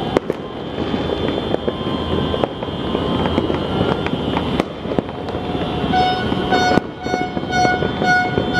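Fireworks and firecrackers going off all around: a continuous dense crackling, with sharper bangs every second or so. About six seconds in, a steady horn-like tone starts beeping about twice a second.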